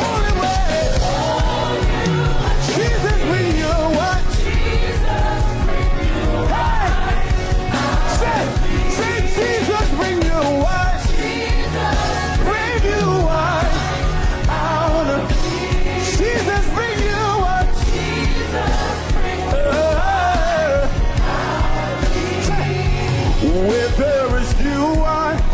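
Live gospel worship music: a full band plays while a singer holds and bends long wordless vocal lines over it.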